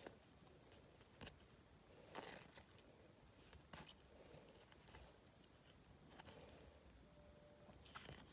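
Faint, scattered rustles and clicks of trading cards and their packets being handled, over near silence.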